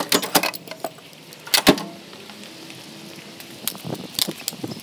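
Hand tools clinking and knocking against metal: scattered sharp clacks, the loudest about one and a half seconds in, with a few more near the end.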